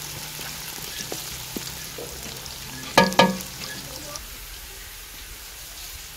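Sliced onions sizzling in hot oil in a karahi, on their way to golden brown, with light ticks as a wooden spatula stirs them. About three seconds in, a short loud pitched sound comes twice in quick succession.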